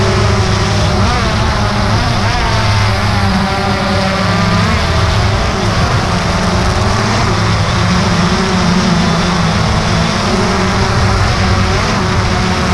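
DJI Phantom 2 quadcopter's motors and propellers buzzing steadily right by the camera's microphone as it hovers low, the pitch wavering slightly as the motors adjust.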